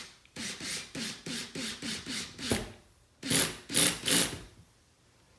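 Power drill driving a drywall screw through a Gladiator steel track into a wooden wall stud, run in short trigger bursts about three a second, then three louder bursts as the screw seats, stopping about four and a half seconds in.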